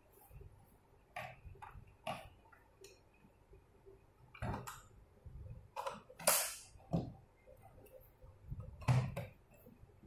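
Handling noise from fitting a fingerprint door lock onto a door panel: a string of scattered clicks and light knocks of metal and plastic parts, with a brief scrape about six seconds in.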